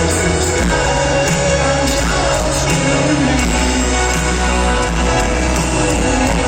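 Loud live rock band playing a ballad, with singing over the band.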